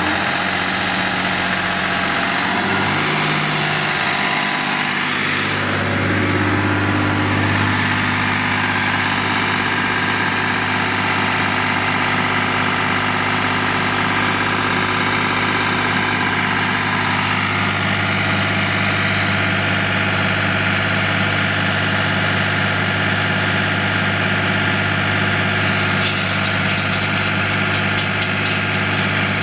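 Diesel engine of a JHD-900 walk-behind concrete saw running steadily. Its note shifts a couple of times in the first few seconds, then holds. Near the end a fast, high rattling joins in.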